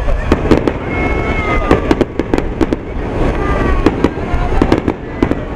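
Aerial fireworks shells bursting overhead: a rapid, irregular series of sharp bangs and crackles, several a second, over a continuous low rumble of echoing booms.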